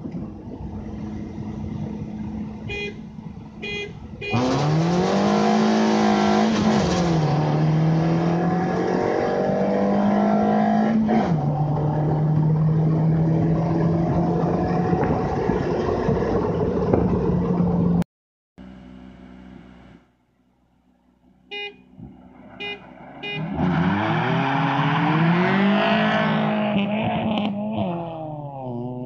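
Two short car-horn honks as a start signal, then a Nissan Sentra B13's engine revving hard through the gears on a drag launch, heard from inside the cabin, pitch climbing and dropping at each shift. After a break, three more honks and two cars launching and pulling away, engines rising and then fading; the launch is a bad one, with second gear missed.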